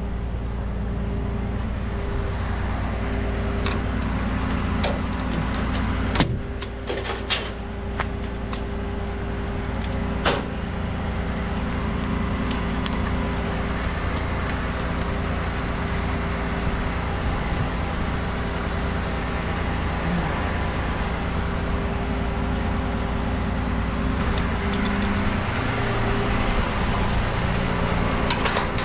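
Kenworth T270 rollback tow truck's diesel engine idling steadily. A few sharp clicks and metal rattles from the tie-down strap hardware come between about four and ten seconds in, and a few more near the end.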